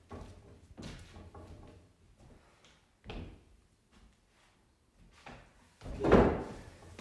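Footsteps and knocks on a wooden floorboard floor, then a loud thump about six seconds in.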